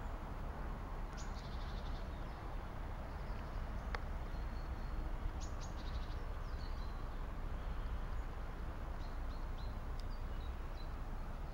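Birds chirping in short high calls and trills over a steady low background rumble, with a single sharp click about four seconds in.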